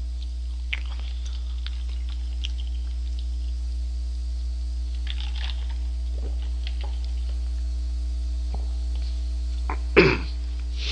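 Steady low electrical hum with a few faint clicks and rustles scattered through it, and one short loud burst near the end.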